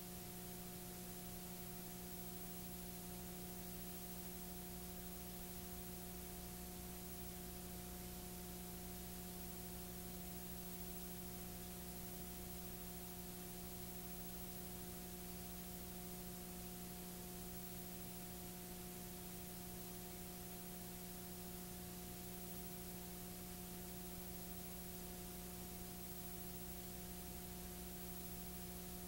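Steady hiss and a low electrical hum from a blank stretch of analogue videotape, with no programme sound.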